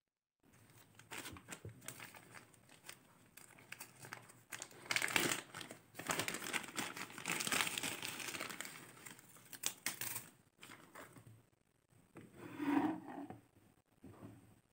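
Clear zip-lock plastic bag crinkling as it is handled and opened, loudest in the middle, then a shorter burst near the end as the thin wooden pieces inside are tipped out.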